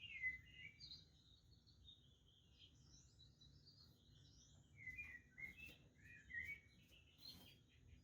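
Budgerigars chirping and warbling faintly in short gliding phrases, loudest just after the start and again about five to seven seconds in.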